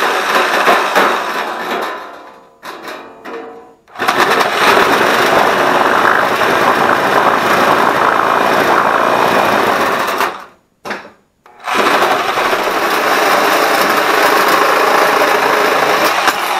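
Handheld electric cutter cutting through thin aluminium sheet. It runs in three long stretches, stopping briefly about two seconds in and again about ten seconds in.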